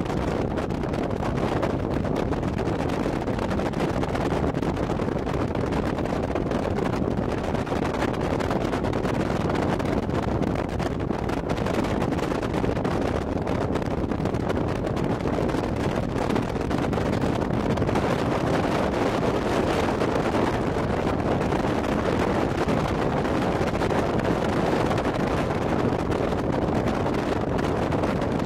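Steady rush of wind on the microphone over the running of a bass boat's outboard motor as the boat travels at speed.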